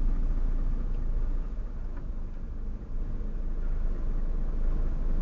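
Truck's diesel engine running at low revs, heard from inside the cab as the lorry rolls forward slowly and nearly stops: a steady low rumble.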